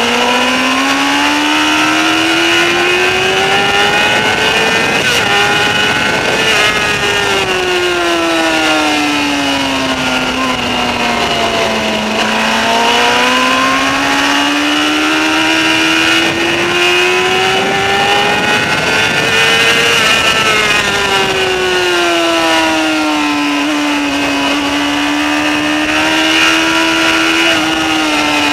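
Sport motorcycle's engine heard onboard while lapping a race track, its pitch climbing for several seconds under acceleration, then falling away under braking, twice over, before levelling off near the end.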